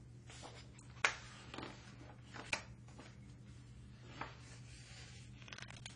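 Pages of a hardcover picture book being turned and handled: a few short paper rustles and taps, the sharpest about a second in and again about two and a half seconds in, over a faint steady low hum.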